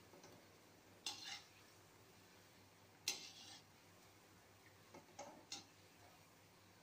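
Metal ladle faintly clinking and scraping against a metal kadhai as gulab jamun are turned in oil: a light clink about a second in, a stronger one with a short ring at three seconds, and a few small clicks around five seconds.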